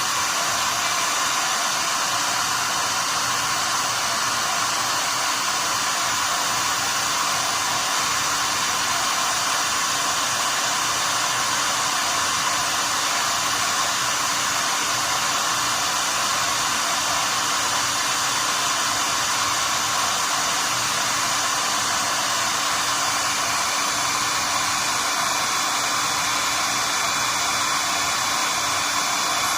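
SEEKONE 1800 W heat gun running steadily, its fan blowing hot air onto a solder seal wire connector to melt the solder ring and shrink the sleeve. A faint high whistle comes in near the end.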